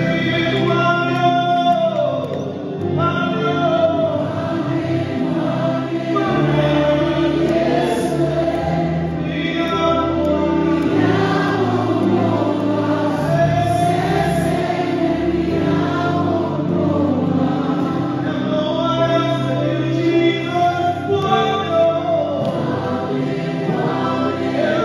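Live gospel worship singing: a man sings lead over a choir of backing vocalists and sustained accompaniment, the sound continuous and steady.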